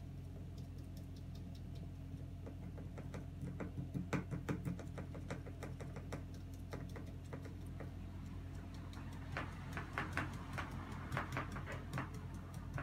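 Irregular light clicks and taps of a small plastic item being handled at the mouth of a papier-mâché model volcano. The clicks come in two busy flurries, one about four seconds in and one from about nine seconds on, over a steady low hum.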